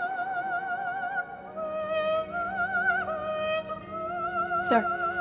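Operatic singing as trailer music: a high voice holding long notes with wide vibrato, moving to a new note every second or so. A brief falling sweep cuts across it near the end.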